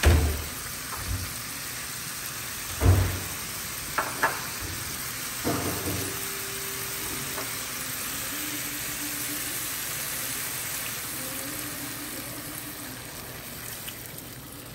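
Chicken, onion and garlic sizzling steadily in a hot frying pan after a splash of water has gone in, with a few sharp knocks against the pan in the first six seconds.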